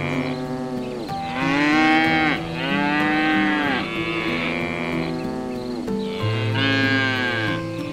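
Cattle mooing: a run of calls about a second long each, every call rising and then falling in pitch.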